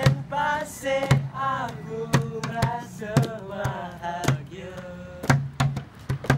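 Young men singing together to a strummed acoustic guitar. A large plastic water jug slapped by hand serves as the drum, with sharp hits about once or twice a second.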